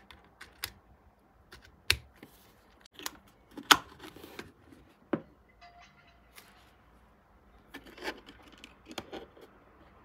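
Irregular plastic clicks and knocks of USB plugs, a USB power tester and a wall charger being fitted together and pushed into a power strip socket, the loudest click about four seconds in.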